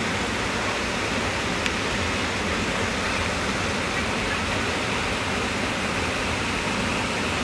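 Steady rushing of flowing river water, an even unbroken hiss, with one faint click about two seconds in.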